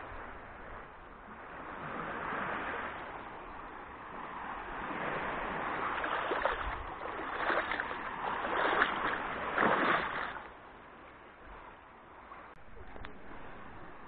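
Sea water splashing and sloshing around a wading swimmer, coming in surges that are loudest between about six and ten seconds in.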